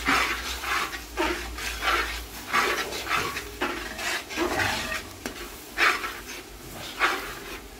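Spatula stirring and scraping a thick masala paste frying in a pan, about two strokes a second, with sizzling.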